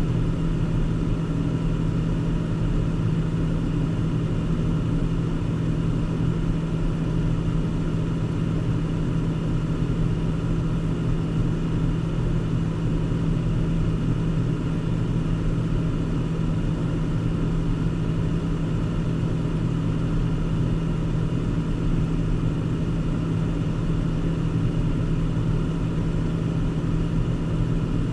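Steady interior noise of a car being driven: an even low engine hum and rumble of tyres on the road, with no change in pace.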